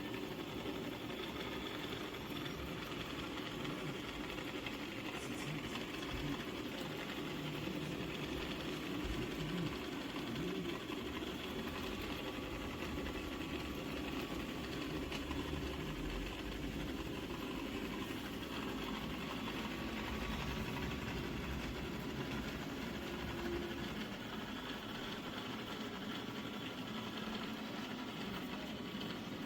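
Shark PowerDetect robot vacuum running: a steady hum of its suction motor and brushes.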